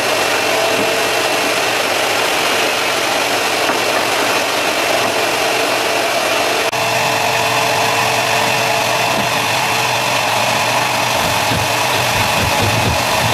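Shop vacuum running steadily: a constant rush of air with a steady whine over it, with a brief dip about halfway through.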